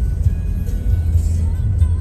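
Background music with soft held notes, over a low steady rumble.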